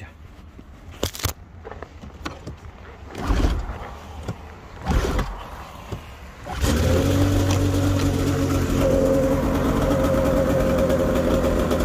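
Arctic Cat snowmobile's two-stroke engine being recoil-started: two short pulls turn it over without catching, then it catches about six and a half seconds in and settles into a steady idle.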